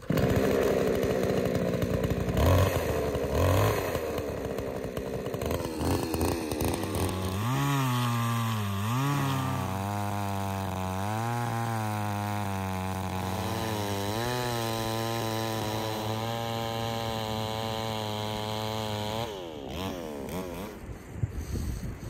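Petrol chainsaw running at high revs while cutting lengthwise down into the end of a standing log. Its pitch dips and recovers several times as the chain bites into the wood, then holds steady, and the engine note falls away about three seconds before the end.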